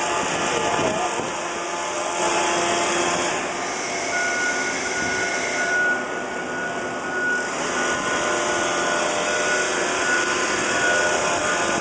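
Steady drone of running machinery, with a thin high-pitched whine joining about four seconds in.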